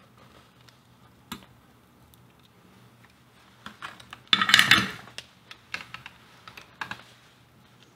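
Light clicks and handling noise from a transistor radio's circuit board and plastic case being worked by hand on a rubber workbench mat, with a louder scraping rattle about halfway through and several quick light clicks after it, over a faint steady hum.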